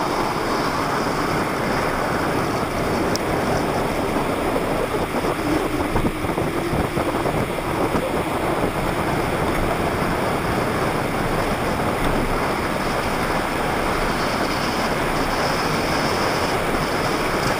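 Hard plastic wheels of a Hot Wheels XL pedal go-kart rolling fast on asphalt, a steady rushing rumble mixed with wind buffeting the microphone.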